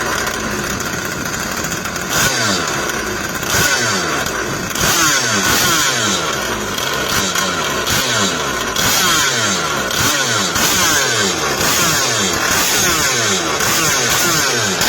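Two-cylinder two-stroke agricultural engine of an RC long-tail boat running loud. From about two seconds in, it is revved up and down over and over.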